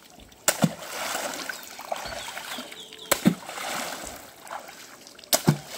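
A long wooden pole slapped down hard on the river's surface three times, about two and a half seconds apart. Each strike is a sharp smack followed by splashing water, made to scare fish out toward a trammel net.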